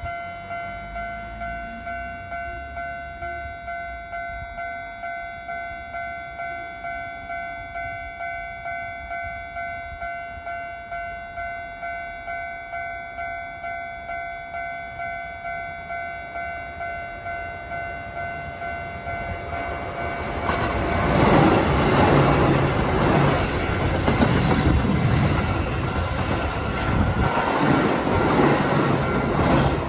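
Japanese railway level-crossing alarm on the Keihan line ringing with a steady ding-ding, about two strikes a second. From about twenty seconds in, a Keihan train passes through the crossing, its rumble and clattering wheels much louder than the bell, which keeps ringing underneath.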